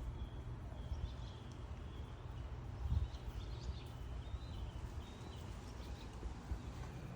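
Gusty wind buffeting the microphone: a steady low rumble, with a stronger gust about three seconds in.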